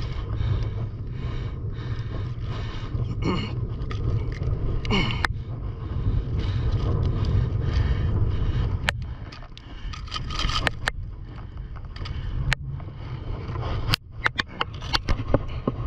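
Hands scraping and working a hooked plastic lure loose from a snapper's mouth, with a few sharp clicks of the lure and hook, over a steady low rumble of wind on the microphone.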